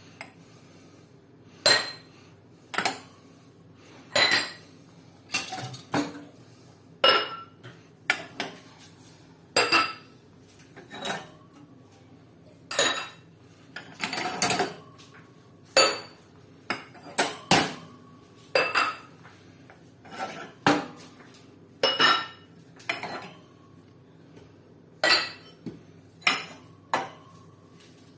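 Glass tumblers, reused Nocilla jars, clinking one after another as they are tapped or handled on a wire shelf. There are about one clink a second, unevenly spaced, each with a short glassy ring, and a brief rattle of several glasses near the middle.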